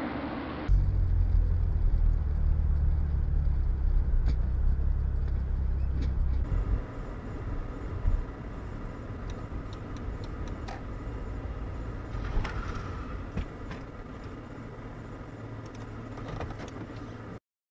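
Road and engine rumble of a moving car, heard from inside the cabin through a dashcam's microphone, with a few faint knocks and ticks. It is loud and low for the first several seconds, drops to a quieter rumble about six and a half seconds in, and cuts off abruptly near the end.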